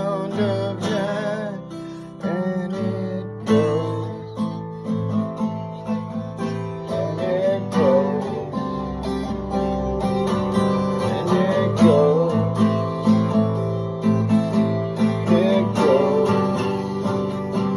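Music: an acoustic guitar strumming chords steadily, with a wavering melody line above it.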